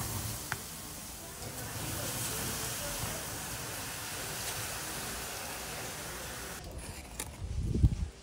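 Water poured from a bucket onto the smouldering embers of a wood fire, which hiss steadily as they are doused. Near the end, a few knife taps and a thump on a plastic plate as tomato is chopped.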